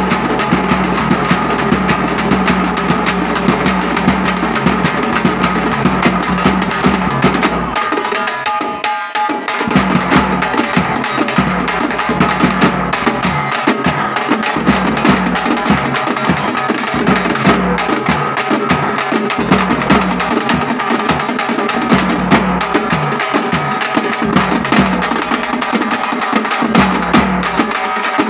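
Thappattam (parai) frame drums beaten with sticks in a fast, dense ensemble rhythm, joined by a steel barrel drum. The deep part of the beat drops out briefly about eight seconds in, then the full rhythm resumes.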